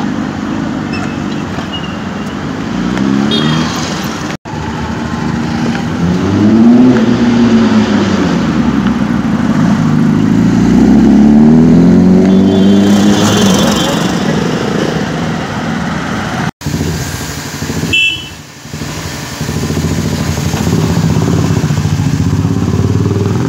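Honda CBR1000RR Fireblade's inline-four engine through an SC Project aftermarket exhaust, ridden in traffic, its pitch rising and falling repeatedly as it revs up and changes gear. After a cut, it runs more steadily, with a brief high beep.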